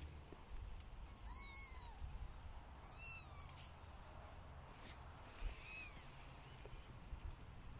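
Young kittens mewing: three short, high-pitched mews, each rising and falling, spread a couple of seconds apart.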